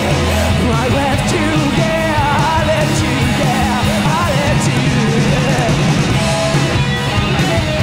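Rock band playing live: electric guitars and drum kit under a sung lead vocal.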